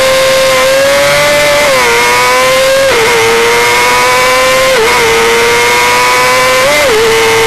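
1990 Honda CBR250RR's 250cc inline-four engine running at high revs under hard acceleration, heard from on the bike; its pitch climbs and then drops sharply four times as it is shifted up through the gears. Wind rushes past steadily underneath.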